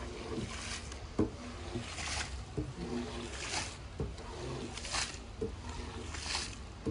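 Long-handled squeegee scraper pushed in repeated strokes over a soaked, soapy rug, each stroke a wet scraping swish as dirty sudsy water is forced out of the pile, about one every second and a half.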